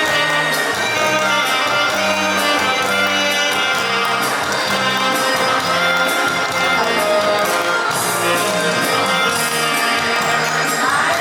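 Two saxophones playing a duet over a musical accompaniment with a steady bass line.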